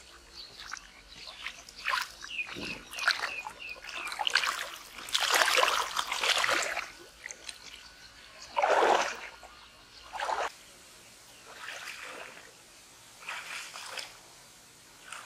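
Pond water splashing and sloshing in several bursts as a person moves and wades through it, loudest about five seconds in and again about nine seconds in. A quick run of short, high chirps sounds about two to four seconds in.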